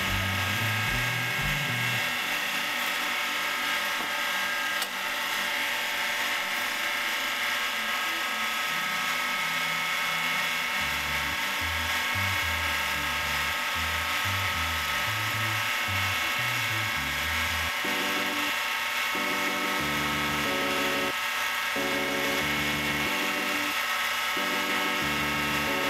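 Mini lathe running steadily, with a high whine from its motor and gearing, while a wooden dowel charged with polishing compound is held against the spinning aluminium bar. Background music with a stepping bass line comes in about ten seconds in.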